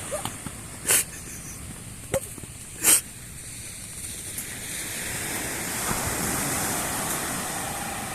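Turboprop airliner engines running in the distance, their noise swelling from about halfway through, with wind buffeting the microphone and three sharp gusts or knocks in the first few seconds.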